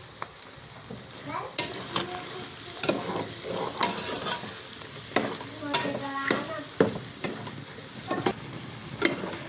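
Food frying in a pan while being stirred with a utensil. Irregular scrapes and clinks against the pan, starting about a second and a half in, sit over a steady sizzle.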